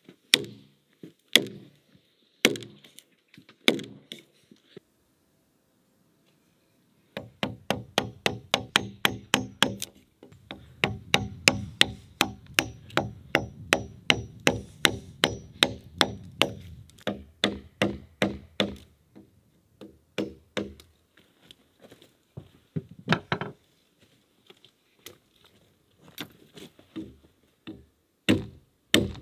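An axe chops into a peeled log to cut a notch, with single strikes about a second apart. Then comes a fast run of strikes, about four a second, on a chisel paring out the notch. Near the end, scattered axe chops return.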